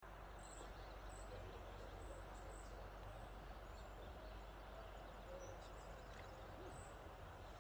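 Faint outdoor ambience: a steady hiss and low rumble, with short, high chirps recurring every second or so.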